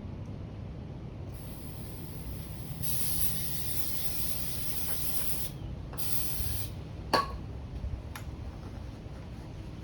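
Aerosol brake cleaner sprayed onto carburetor parts: one long hissing spray of about four seconds, then a short burst. A sharp click follows, and a fainter one a second later.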